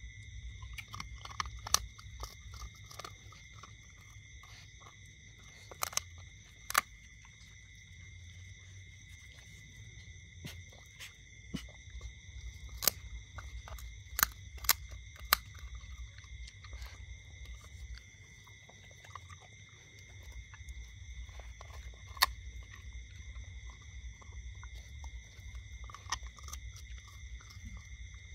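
Dog gnawing a large meaty bone, its teeth crunching and scraping on it, with sharp cracks now and then, several close together in the middle.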